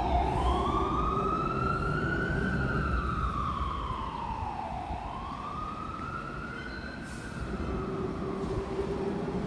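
Emergency vehicle siren in a slow wail, its pitch rising and falling twice over a few seconds each.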